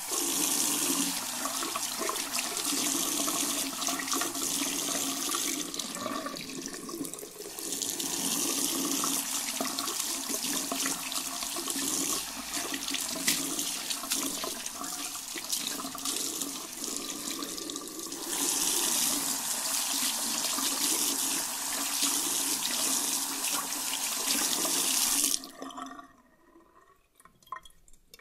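Hands being washed under a running tap at a washbasin: water splashing steadily, varying in level. Near the end the water stops suddenly, leaving a few faint drips.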